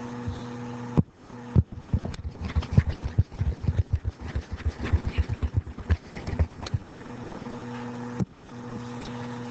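A run of irregular sharp clicks and taps, sparse at first and then fast and dense for a few seconds, from a stylus or mouse working as handwritten on-screen pen marks are erased. A steady low electrical hum sounds at the start and again near the end.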